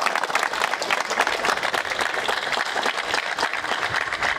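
A crowd of people applauding, many hands clapping at once without a break.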